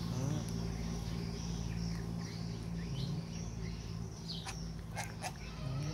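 Scattered short, high chirps over a steady low hum, with a few sharp clicks about four and a half to five and a half seconds in.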